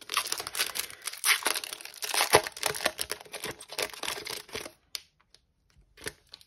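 Foil wrapper of a baseball card pack being torn open and crinkled in the hands, a dense crinkling that stops about two-thirds of the way through, followed by a few faint rustles.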